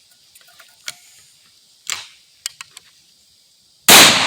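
A few light mechanical clicks of the shotgun being handled, then a single very loud blast of an Ithaca Model 66 single-shot 12-gauge firing a 3-inch shell near the end, ringing out afterwards.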